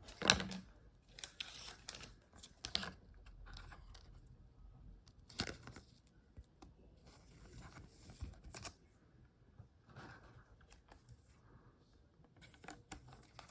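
Intermittent rustling and crinkling of plastic, with short scrapes, as a thick trading card is handled and slid into a rigid plastic top loader.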